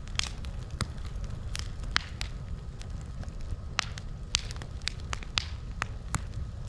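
Wood campfire crackling, with sharp, irregular pops and snaps over a low, steady rumble.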